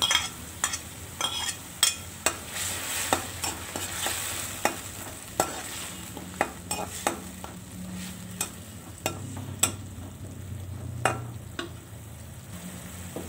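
Metal spatula stirring and scraping in a wok of frying tomatoes and chilies, clicking against the pan many times over a steady sizzle; the clicks grow fewer near the end.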